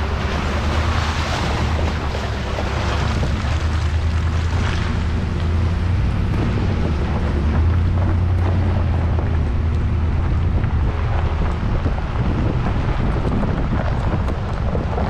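2014 Ford Raptor's 6.2-litre V8 running steadily at low speed, a deep rumble, with the tyres rolling over a dirt and gravel trail. Heard from a camera mounted on the outside of the truck, with wind noise on the microphone.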